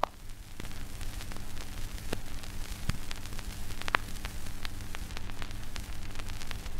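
Surface noise of a 78 rpm shellac gramophone record with no music on it: steady hiss and hum with scattered crackles and clicks, a few of them louder.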